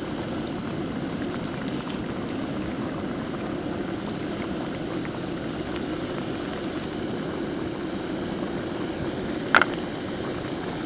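Portable gas camping stove burner running with a steady rushing hiss under a pan of chicken curry. There is one sharp metallic clink about nine and a half seconds in.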